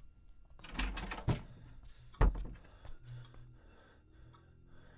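A short burst of rustling clatter, then two sharp bangs about a second apart, the second the loudest, with the knock of wood or a door; a faint low tone follows.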